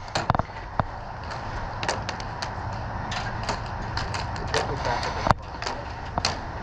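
A string of sharp clicks and snaps, about two a second and uneven, with one louder crack about five seconds in, over faint voices.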